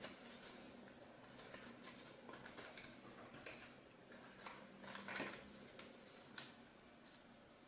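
Quiet rustling and crinkling of a sheet of origami paper being folded and creased by hand, with scattered sharper crackles, the loudest about five seconds in.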